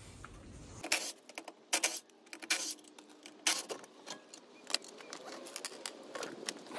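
Irregular sharp metallic clicks and clinks as a road wheel is taken off a car with a cordless impact wrench: tool, wheel hardware and wheel being handled.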